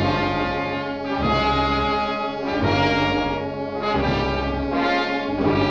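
Orchestral music bridge led by brass: sustained trombone and horn chords in repeated swells over deep low notes that come and go.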